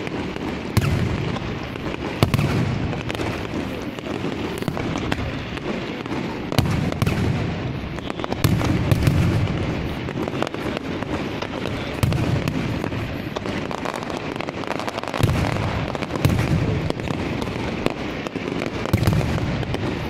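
Aerial fireworks shells bursting overhead: deep booms about every two to three seconds over a steady rush of noise dotted with sharp cracks.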